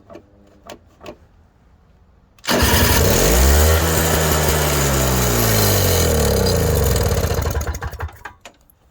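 Electric starter cranking the unprimed Tecumseh two-stroke engine of a Toro CCR 3650 snowblower: it cuts in suddenly a couple of seconds in, spins up and then slows over about five seconds, and dies away without the engine catching. It doesn't start for lack of priming.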